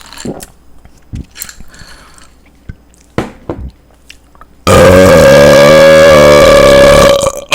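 A man's long, very loud burp starting a little past halfway and lasting about two and a half seconds, its pitch dipping in the middle and rising again before it stops. Before it there are only faint small clicks and rustles.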